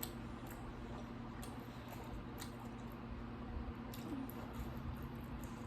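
Close-miked chewing of pizza: faint wet mouth clicks and smacks, irregular, a few a second, over a steady low hum.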